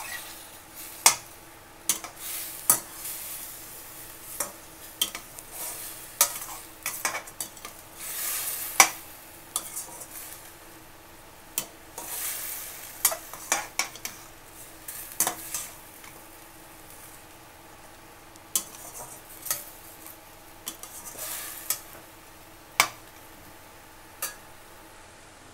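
Chicken pieces with ginger-garlic paste sizzling in oil in a stainless steel pan while a perforated metal spoon stirs them, scraping and clinking against the pan in irregular strokes. The stirring stops near the end.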